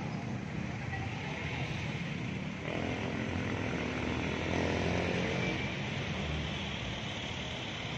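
Road traffic: steady engine and tyre noise from passing and idling vehicles, with one vehicle's engine growing louder as it passes from about three to six seconds in.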